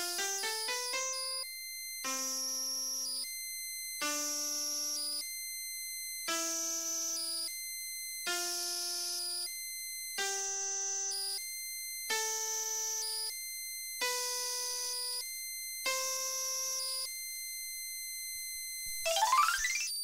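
VTech Mimi Doremi musical toy playing synthesized electronic notes. It opens with a quick rising run, then plays single held notes about every two seconds, and ends with a rising sweep.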